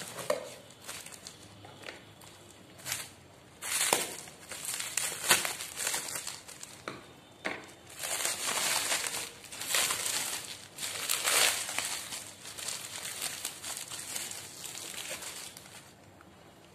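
Packaging crinkling and rustling in the hands as products are unwrapped, in irregular spells with a few sharp clicks, busiest in the middle stretch and dying away near the end.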